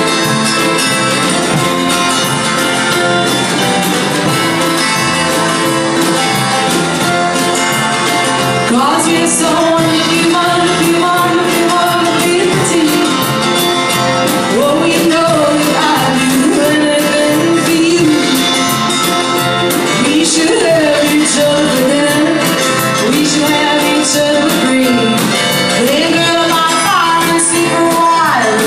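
Live band playing in a pub: a woman singing lead over drum kit and electric guitar, loud and heard from among the audience.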